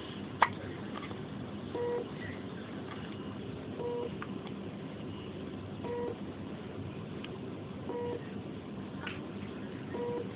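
A newborn baby's hiccup, one sharp 'hic' just under a second in, over a NICU monitor beeping steadily: one short beep about every two seconds.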